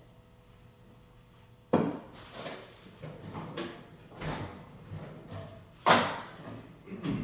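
Workbench handling noises as a shotgun and tools are picked up and set down: a string of sharp knocks and clunks starting just under two seconds in, the loudest near six seconds in.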